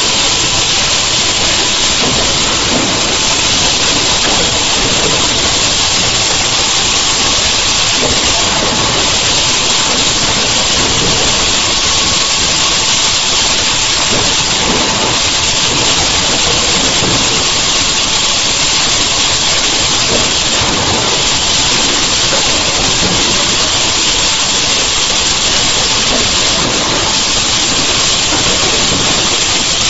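Two-cavity PET bottle blow moulding machine running: a loud, even hiss with a faint steady tone under it, with no separate blow cycles standing out.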